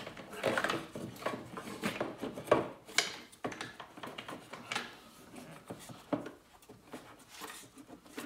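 Hands working the plastic air filter housing of a BMW N63 engine back into place around a new air filter: irregular rubbing and scraping of plastic, with a few sharp clicks and knocks, the loudest about two and a half to three seconds in.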